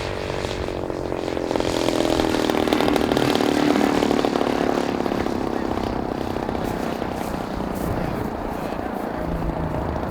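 Radio-controlled model Grumman Bearcat warbird flying past: its engine and propeller swell to their loudest a few seconds in, the pitch sliding down as it passes, then fade away.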